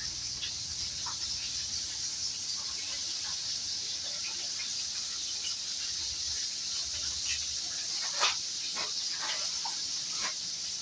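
Cornmeal-coated fish frying in hot oil in a pan, a steady sizzle with a few light clicks, one clearer about eight seconds in.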